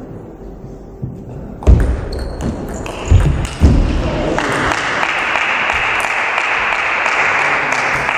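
Table tennis rally: the celluloid ball clicking off bats and table, with three heavy thuds among the strokes. Then applause rises from the crowd in a large hall from about four seconds in, as the point ends.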